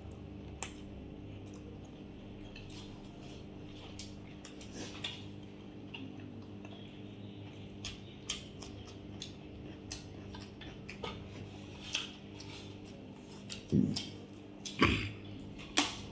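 Eating sounds: scattered small clicks and scrapes of food being taken from a plate, with chewing, over a steady low hum. A few louder knocks come in the last few seconds.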